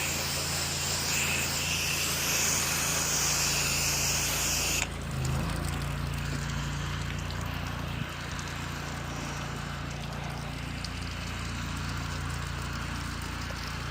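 Pressure washer spraying: a loud hiss of water from the wand that cuts off suddenly about five seconds in, as the trigger is released. The machine's engine keeps running with a steady hum underneath.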